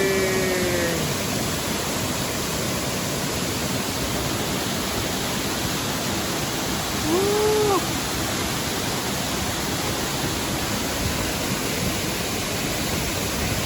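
Waterfall rushing steadily, the sound of swift, heavy-flowing water. A short pitched call sounds just at the start and another about seven seconds in.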